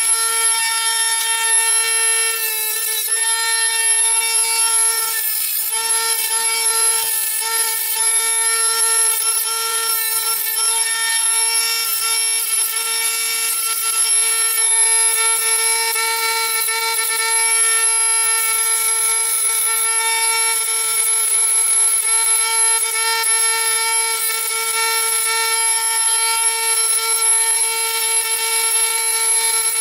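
A Dremel rotary tool with a cut-off wheel, whining steadily at high speed as it cuts and trims thin sheet metal. A harsher grinding comes and goes several times in the first ten seconds.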